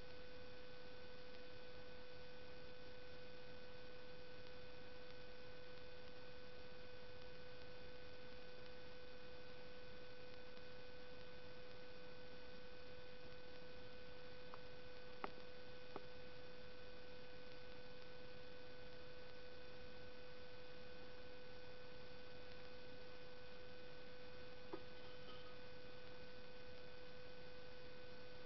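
Steady electrical hum and whine of several fixed tones over a low hiss, recording noise with no other sound on it. A few faint clicks come about halfway through and one more near the end.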